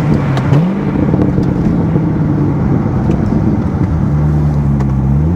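Corvette Z06's 7.0-litre LS7 V8 running under way, heard with the windows down over road and wind noise. The revs rise quickly about half a second in, hold steady, then start to climb again near the end.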